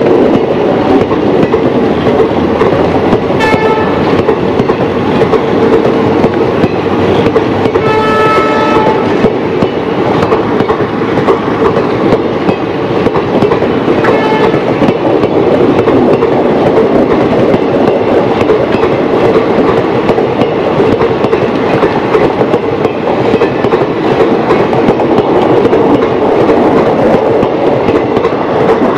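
Passenger coaches of an express train running past at speed: a loud, steady rumble of wheels on rail with clickety-clack over the joints. A train horn sounds briefly three times, about 3, 8 and 14 seconds in, the middle blast the longest.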